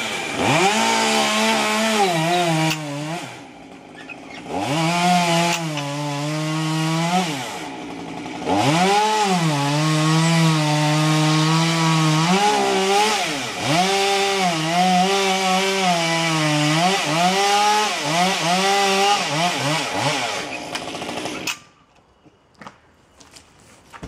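Two-stroke chainsaw running and cutting wood, its engine revving up and down and dropping in pitch as it bites into the cut, with two brief lulls. It stops suddenly near the end.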